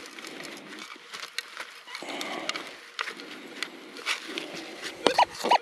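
Digging and scraping in gravelly desert soil, irregular clicks and scratches of tool and stones, to recover a metal-detector target. Two short beeps near the end.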